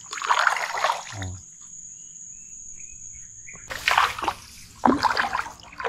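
Water splashing and sloshing in short bursts: one in the first second, then after a quieter stretch several sharper splashes from about four seconds in.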